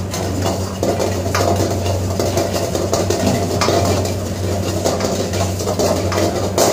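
Metal ladle scraping and knocking against a steel wok as rice is stir-fried, a continuous clatter with irregular sharper knocks. Underneath is a steady low hum.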